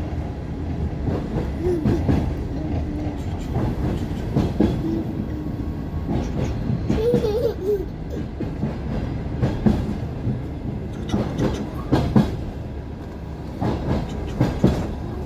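Long-distance passenger train running, its wheels clattering over the rail joints: a steady low rumble with irregular knocks and clacks.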